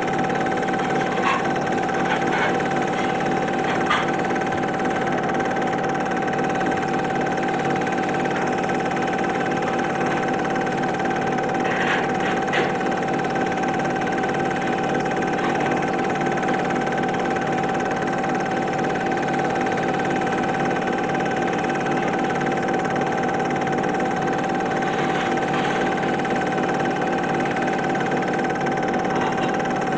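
Super 8 film projector running: a steady mechanical hum with a high whine held on one note, and a few faint clicks, a pair of them about twelve seconds in.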